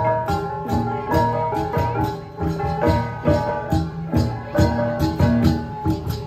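Central Highlands gong ensemble (cồng chiêng) playing: several hand-held gongs, each at its own pitch, struck in a fast interlocking rhythm, their tones ringing over each other with sharp, bright attacks on each stroke.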